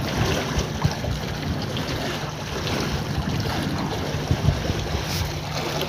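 Wind buffeting the microphone over choppy water sloshing against a concrete pier: a steady rushing noise with occasional low thumps.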